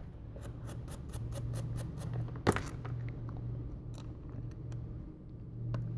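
Small phone parts being handled and cleaned by hand: a quick run of about a dozen faint scratchy ticks in the first two seconds, one sharper click about halfway, then a few scattered ticks, over a low steady hum.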